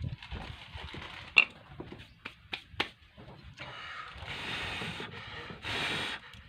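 A hand file scraping the plastic housing of a brushcutter trimmer head, with a few sharp clicks in the first half, then several rasping strokes.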